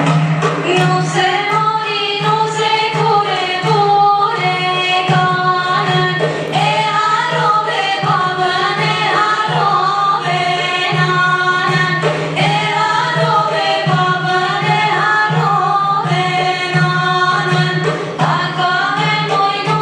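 Albanian folk song: a group of voices singing a bending melody over a steady low drone.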